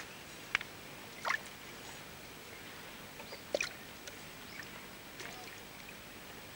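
Short water splashes and wet slaps as hands take fish out of a keepnet: three louder ones within the first four seconds, then a few fainter ones.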